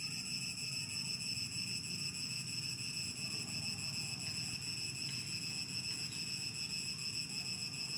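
Steady high-pitched drone of insects, unbroken and unchanging, over a low background hiss.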